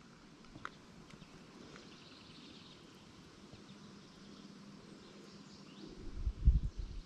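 Faint outdoor riverside background, a steady low hiss of flowing water, with a few faint high chirps from birds. About six seconds in come several loud low thumps, like handling or knocks on the microphone.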